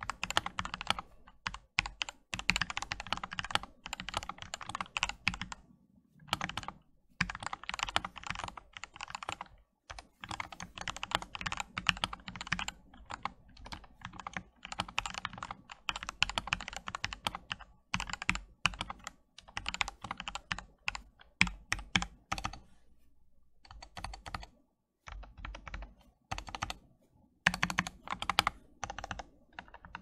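Typing on an Epomaker GK96S mechanical keyboard with lubed Gateron Yellow linear switches and YMDK 9009 retro keycaps: fast runs of keystrokes broken by short pauses, the longest a couple of seconds past the middle.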